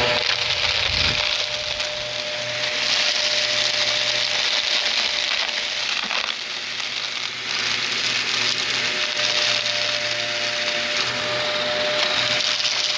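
Vacuum cleaner running steadily, with crackling and crunching as it sucks up dry, crunchy debris.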